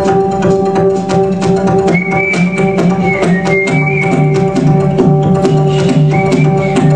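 Swing-era music with drums and a double bass keeping a steady beat, and a whistled melody that comes in about two seconds in and again near the end.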